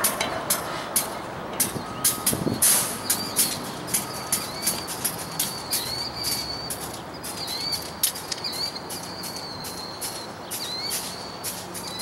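Slow-rolling rail cars clicking and clacking irregularly over the track. From about three seconds in, a small bird chirps a short rising call over and over.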